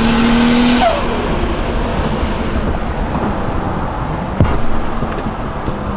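Cabin sound of an R32 Skyline GT-R's single-turbo RB26 straight-six pulling hard at a steady pitch, then backing off just under a second in with a short falling tone. After that the engine and road noise settle to a steadier level, with one sharp knock about four and a half seconds in.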